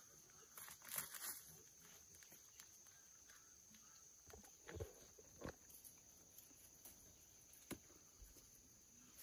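Very faint footsteps and rustling of leaves as someone moves through dense tomato plants, with a few light snaps and clicks.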